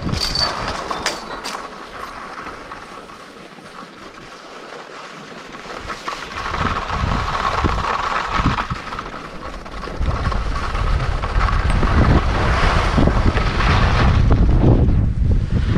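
Skis gliding and scraping over groomed snow with a steady hiss, and wind buffeting the microphone; from about ten seconds in the wind rumble grows much louder as the skier picks up speed.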